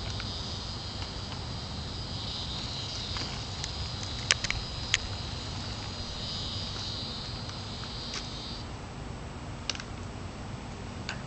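Steady high-pitched insect chorus that stops about three-quarters of the way through, with a few sharp clicks around the middle over a low background rumble.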